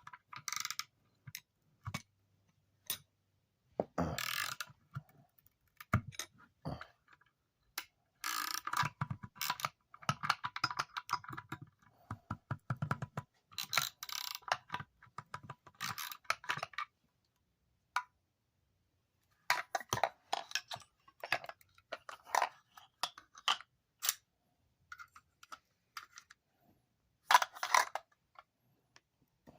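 Hand tools clicking, scraping and rattling against a salvaged electric motor as its housing is pried apart: irregular clicks and short scrapes, busiest in the middle, with a louder scrape near the end.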